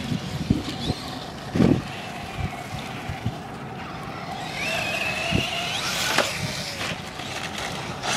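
Radio-controlled model trucks driving, their motors whining in a thin tone that rises and falls with the throttle, with several knocks from the trucks bumping over the ground; the loudest knock comes about a second and a half in.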